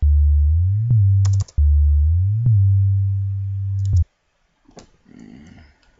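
Deep synth bass from FL Studio's JR Bass plays a short pattern twice, each time a low note sliding up in pitch into a higher held note. Mouse clicks sound over it, and the bass cuts off suddenly about four seconds in, followed by a few more clicks.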